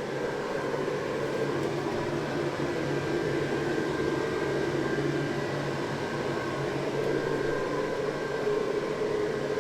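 Electric blower fan of an airblown Christmas inflatable running steadily, a constant hum with a faint whine over it.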